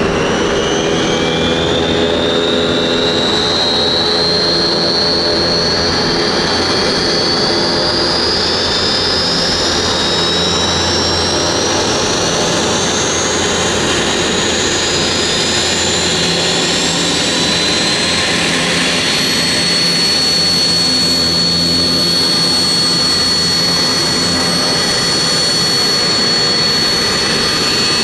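Avro RJ100's Honeywell LF507 turbofans starting up: a high whine climbs steadily in pitch over the first half, then settles into a steady high tone about two-thirds of the way in as an engine spools up to idle, over a constant low engine rumble.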